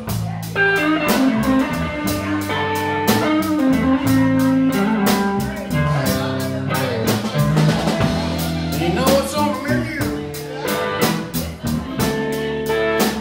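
Live Texas blues trio playing: electric guitar through a tweed 5E3 Deluxe amp, over bass and a drum kit keeping a steady beat, with bent guitar notes about nine seconds in.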